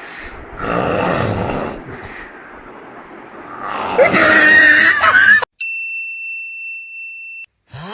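Loud, rough snoring: two drawn-out snores, the second louder and harsher and cut off suddenly a little past halfway. It is followed by a clear, high ringing ding that holds steady for about two seconds.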